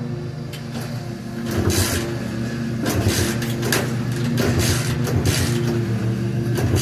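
Repeated kick-starting of a 110cc dirt bike that will not start: about six short, noisy strokes, roughly one a second, beginning about a second and a half in, with the engine not catching. A steady low hum runs underneath.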